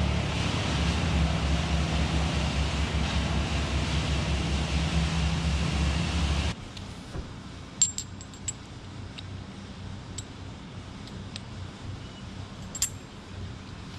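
An engine idling steadily, cutting off about six and a half seconds in. Then a few light metallic clinks of rigging hardware, a carabiner on the rope.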